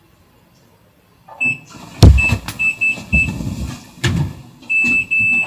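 After about a second of near silence, a high electronic beep sounds in short repeated pieces and then longer ones. Several loud thumps and low rumbles come in between, the loudest about two seconds in.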